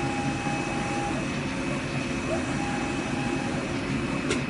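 CNC fabric-cutting machine running: steady machine noise with a constant high whine, and a mid-pitched tone that comes and goes in stretches of about a second. A sharp click near the end.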